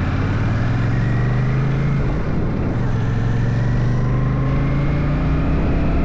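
Royal Enfield Shotgun 650's parallel-twin engine running under way. There is a short break in its note about two seconds in, then the pitch climbs steadily as the bike accelerates.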